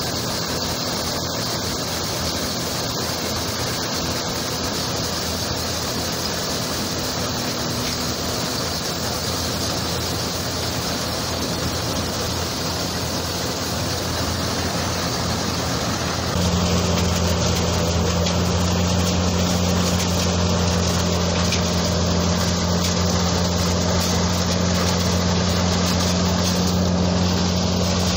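Tractor-driven peanut thresher running: the steady drone of the tractor engine turning the threshing drum by belt, with the whir of the machine as dry peanut plants are fed in. About halfway through it gets louder, with a stronger low hum.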